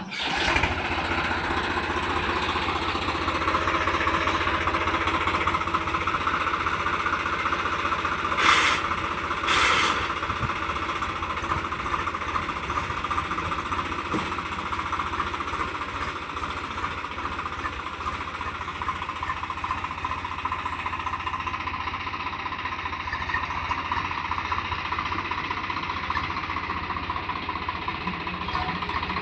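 Diesel tractor engine running steadily with a rapid knocking clatter. Two short sharp noises stand out about eight and ten seconds in.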